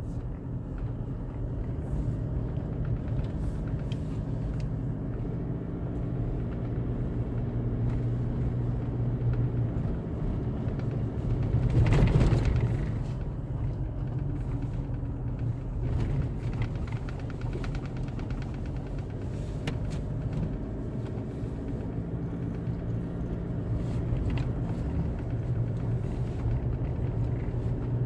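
Vehicle engine running steadily with road rumble on a rough, unrepaired road, with scattered knocks and rattles. The sound swells louder for a moment about twelve seconds in.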